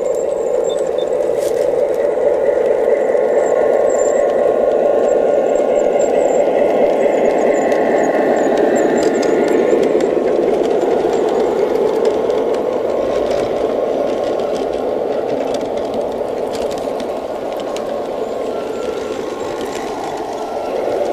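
G scale garden-railway train rolling along its track, a steady running noise of wheels and motor. It is loudest as the cars pass close and eases off as the train moves away.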